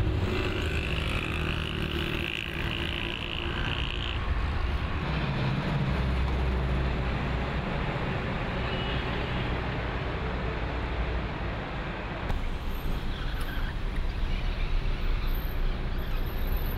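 Steady road traffic noise from cars and trucks moving along a multi-lane road. A little past twelve seconds the sound changes abruptly and the level becomes uneven and fluctuating.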